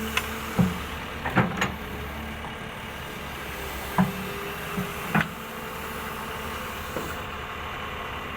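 A machine's engine running steadily at a concrete pour, with irregular sharp knocks and bangs on top, the loudest in a cluster about a second in and again around four to five seconds in.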